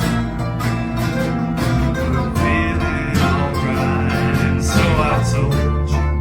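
Live acoustic band music: guitar and other plucked strings playing a country-style song at a steady, full level.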